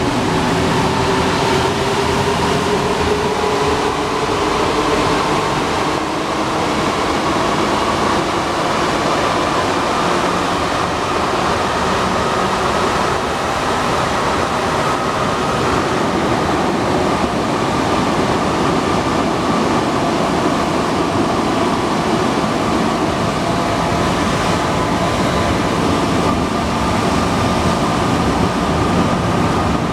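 Alstom NS-93 rubber-tyred metro train running at speed, a steady running noise with a faint whine that rises slightly in pitch over the first half.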